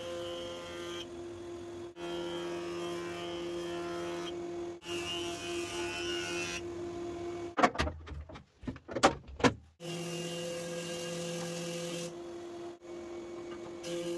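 Hammer A3-31 combination jointer-planer running steadily while ash boards are fed over the cutterhead, the tone shifting as each board passes. Around eight to nine and a half seconds in the machine goes quiet and several loud clacks and knocks follow as the jointer tables are flipped up to switch to thickness planing, then the machine runs again.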